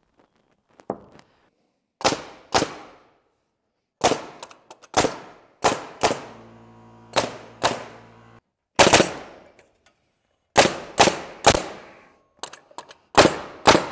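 Hammer blows on a heavy timber upright, sharp strikes in pairs and threes, knocking the glued post into place. About halfway through there is a short steady mechanical hum.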